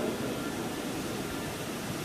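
Steady, even hiss of running machinery, with no distinct knocks or tones.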